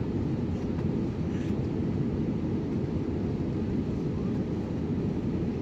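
Steady low cabin noise inside an Airbus A330-300 airliner: a constant rush of engine and airflow noise.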